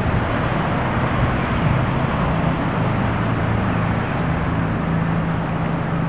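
Steady outdoor background noise with an even low hum underneath, unchanging throughout.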